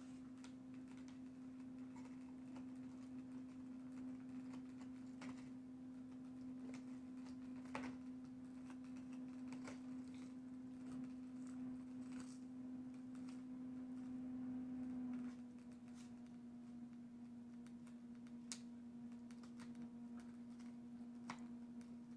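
A dog gnawing a rawhide bone: faint, scattered clicks and crunches every couple of seconds. Under it runs a steady low electrical hum, which is the loudest sound and drops a little about fifteen seconds in.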